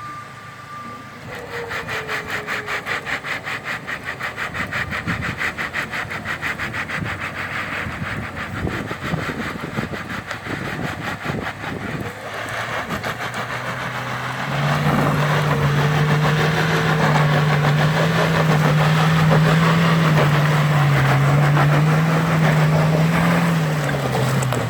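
UAZ Hunter's engine working hard under load while towing through mud. It starts as a fast, even pulsing, then about fifteen seconds in rises to a loud, steady drone that wavers up and down in pitch.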